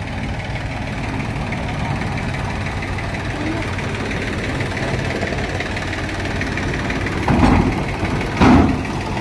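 Sonalika DI 750 III tractor's diesel engine idling steadily. Two brief, louder sounds break in near the end.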